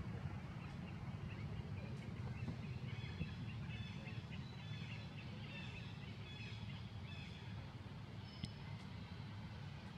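Birds chirping in short high-pitched calls in the trees over a steady low outdoor rumble, with one sharp tick about eight and a half seconds in.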